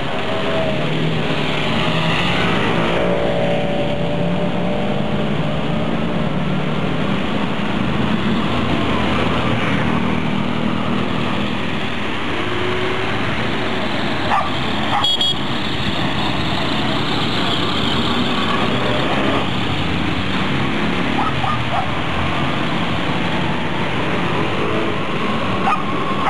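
Heavy rain on a wet street with motor traffic running through it: engines going and tyres swishing on the flooded road. A dog barks now and then.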